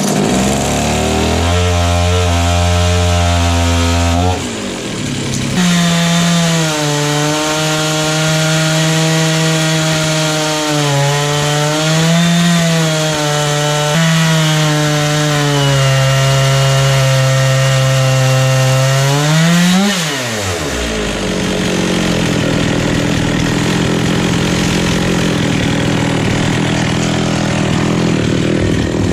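Stihl MS460 two-stroke chainsaw on a chainsaw mill, running at a lower speed briefly, then at high revs ripping through a log, its pitch dipping and recovering as the load changes. About two-thirds through the revs fall away sharply, and a rougher, noisier running sound carries on.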